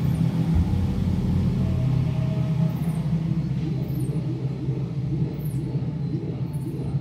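Steady low rumble of a running motor with a droning hum, and faint short high chirps falling in pitch about four times in the second half.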